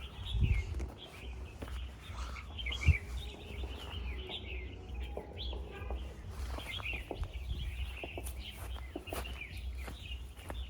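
Many small birds chirping without a break, over a steady low rumble, with two dull thumps, the louder about three seconds in.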